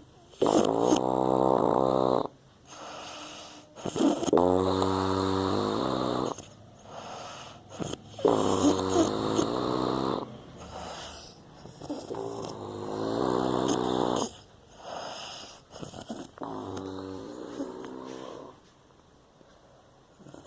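A person snoring loudly, in a slow rhythm: five long snores about four seconds apart, with softer breaths between. It goes quiet near the end.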